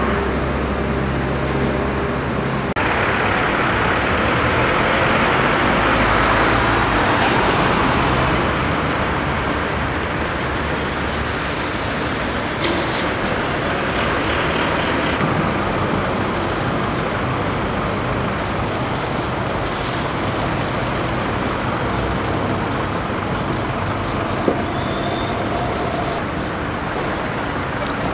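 Steady city road traffic: engines and tyres of passing cars and minibuses, with a few short hisses and one sharp click later on.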